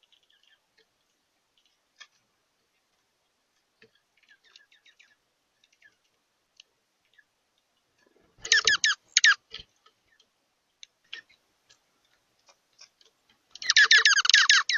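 Birds calling: faint scattered chirps and clicks, then about eight seconds in a loud burst of rapid, quickly repeated calls lasting about a second, and another longer burst of the same rapid calls near the end.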